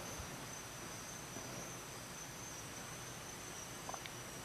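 Faint steady high-pitched cricket trill over quiet room hiss, with one tiny click near the end.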